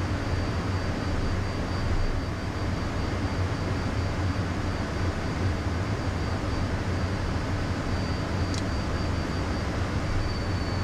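Cockpit noise of a Beechcraft Premier 1A twin-turbofan business jet climbing after takeoff: a steady low rumble and rush of airflow with a thin, steady high whine over it. One brief click sounds near the end.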